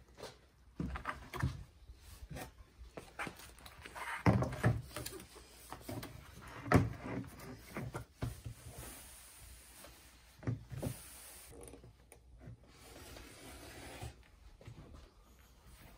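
A sheet of vinyl leatherette rustling and rubbing as it is handled and smoothed by hand on a wooden workbench, with several sharp knocks on the bench, the loudest about four and seven seconds in. Later there are stretches of steady scraping hiss as hands slide over the sheet.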